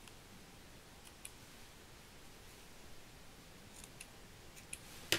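Small craft scissors snipping thin ribbon: a few faint, scattered snips, the last and sharpest at the very end.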